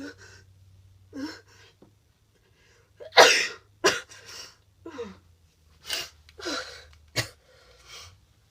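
A woman with a cold sneezing once, loudly, about three seconds in, with short coughs before and a run of further coughs after it.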